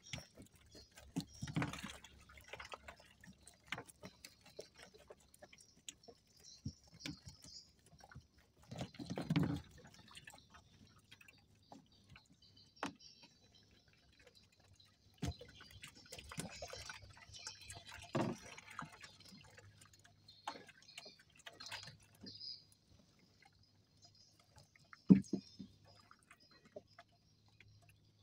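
Scattered drips, splashes and knocks of water and wet handling, with one sharp knock near the end, as a fish trap is worked over the water.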